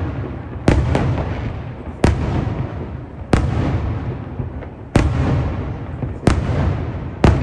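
Aerial firework shells bursting overhead: about seven sharp bangs, roughly one every second or so, a pair coming close together near the start. Each bang trails off in a low rolling rumble.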